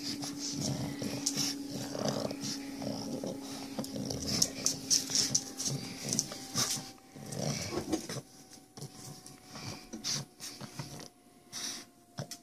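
A large mastiff-type dog and a small black-and-white dog playing tug-of-war over a rope toy: irregular dog play noises and scuffling, busier for the first eight seconds and quieter after.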